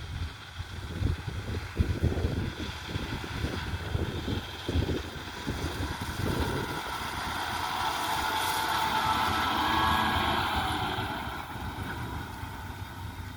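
Engine of a harvest machine working in the field, growing louder to a peak about ten seconds in and then fading as it passes. Wind buffets the microphone in the first half.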